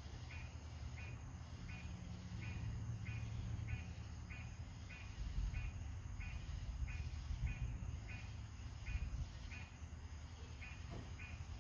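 Deep, low rumble of distant thunder, swelling and fading several times. Over it, a night insect chirps steadily, about two short chirps a second.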